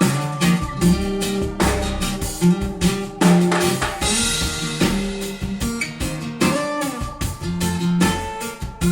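Pop-rock music with guitar and a drum kit keeping a steady beat, with a cymbal crash about four seconds in, played through Yamaha NS-100 two-way bookshelf loudspeakers as a listening test.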